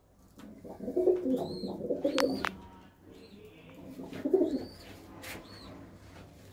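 A pair of domestic pigeons cooing in their loft, in two bouts of low, throaty coos: one about a second in and another around four seconds in. A couple of short clicks come between them.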